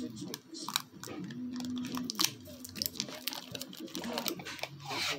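Amber Kapton tape crinkling and crackling in irregular small clicks as it is pulled off the roll and wrapped around a lithium-ion battery pack.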